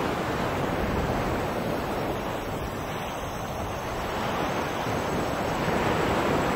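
Ocean surf: an even wash of waves that eases off around the middle and swells again near the end.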